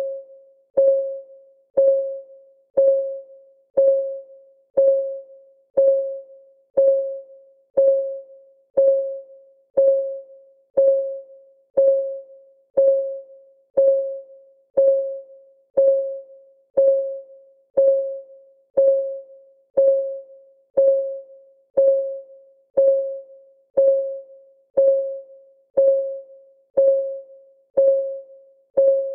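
Countdown timer's clock ticking, one tick a second, even and unchanging. Each tick is a soft, pitched tock that rings briefly on one note and fades before the next.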